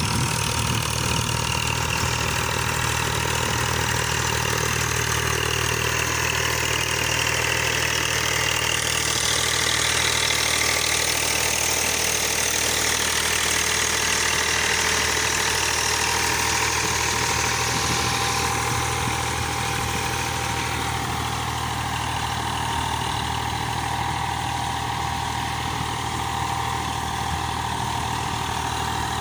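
Eicher tractor's diesel engine running steadily as the tractor works through deep paddy-field mud with a rotavator.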